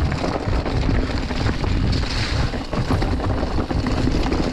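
Wind buffeting the camera microphone over the steady low rumble of a mountain bike rolling fast down a snowy trail.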